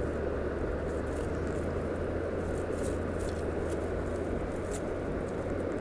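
Fingers handling a fishing hook, a pop-up bait and a groundbait-packed feeder close to the microphone: faint rustles and a few light ticks over a steady low rumble.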